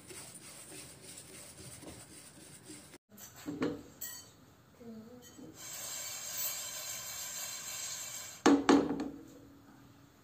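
Sesame seeds being stirred in a nonstick frying pan with a spatula: a dry rustling scrape of seeds over the pan, with one sharp knock near the end, the loudest sound.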